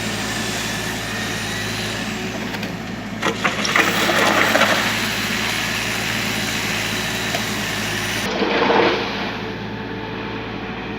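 Kubota U35 mini excavator's diesel engine running steadily. A sharp knock about three seconds in starts a louder spell of scraping and rattling that lasts a second or two, and a shorter louder spell comes near nine seconds.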